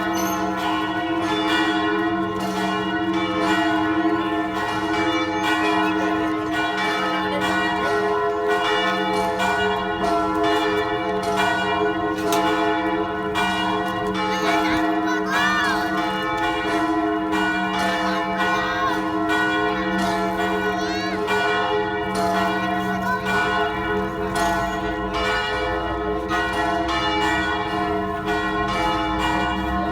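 Church bells ringing in a continuous peal: frequent, irregular strikes whose tones ring on and overlap into a steady hum.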